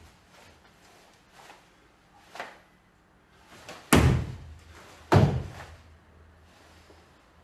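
Barefoot karate kata on a wooden stage floor: two loud sharp impacts about a second apart near the middle, from the performer's movements, with fainter knocks and gi rustle before them.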